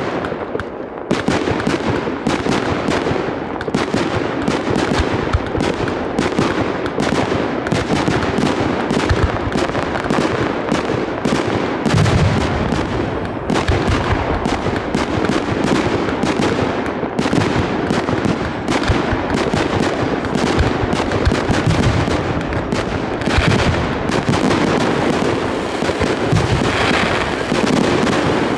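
Aerial fireworks shells bursting in a dense, unbroken run of rapid bangs and crackles.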